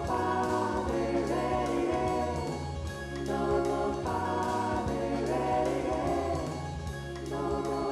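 Music: a choir singing held chords that change every second or two, over a low bass.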